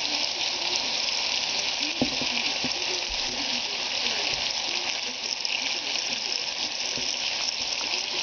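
Bacon sizzling steadily as it fries in its own fat in a hot electric skillet, a constant crackling hiss, with a single light knock about two seconds in.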